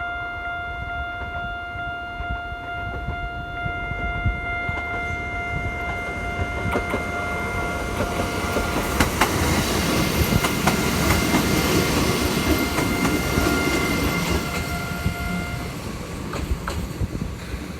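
Japanese railway level crossing warning bell ringing steadily while an Abukuma Express train approaches and passes, its wheels rumbling and clacking over the rail joints; the train is loudest about halfway through, and the bell stops shortly before the end as the train moves away.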